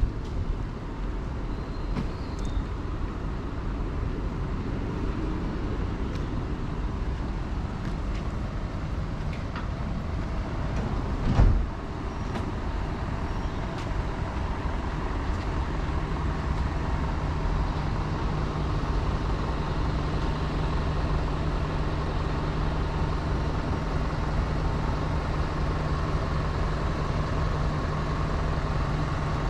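Road traffic: a steady rush of street noise, broken about eleven and a half seconds in by a single sharp thump. About halfway through, the steady low hum of a running vehicle engine joins in and holds.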